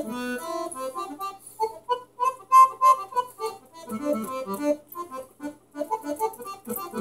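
Electronic keyboard on an organ-like voice, played by a small dog's paw pressed onto the keys: short, random notes and clustered chords in an uneven rhythm.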